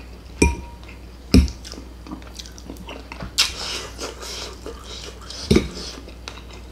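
Close-up chewing and mouth sounds of someone eating beef, with three sharp clicks of a metal fork against a ceramic plate.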